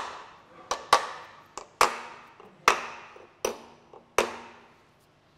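Sharp knocks, about seven of them at roughly one a second, each with a short ring, as the crankshaft main bearing cap girdle of a Toyota Corolla TS engine is knocked down to seat it on the aluminium engine block.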